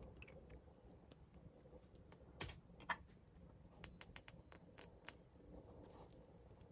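Makeup containers being handled: faint small sharp clicks and taps, two louder ones about two and a half seconds in, then a quick run of about a dozen more.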